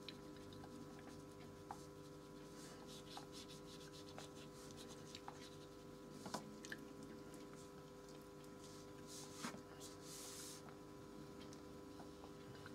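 Faint scratching of a fine paintbrush's bristles drawn across paper in quick short strokes, with a few light ticks.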